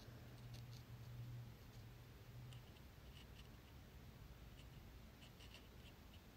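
Near silence: faint room tone with a low hum over the first couple of seconds and a scattering of faint, short ticks.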